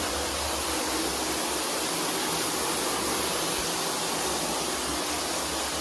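Water running steadily from a bathtub tap, an even rushing hiss.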